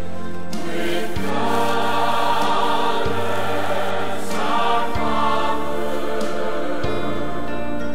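Choir singing a hymn with instrumental accompaniment, sustained chords with the bass changing about every two seconds.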